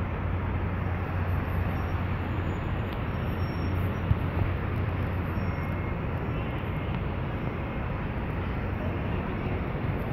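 Steady outdoor city background noise: an even low hum and rumble with no distinct events.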